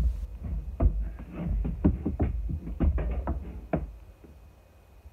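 Irregular knocking and clattering of hard objects being handled and set down, a dozen or so sharp knocks that die away about four seconds in.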